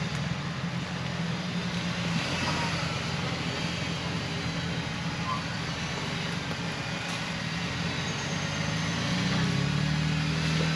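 Off-road vehicle's engine running steadily as it drives along a trail, with road and tyre noise; the engine note rises a little about nine seconds in.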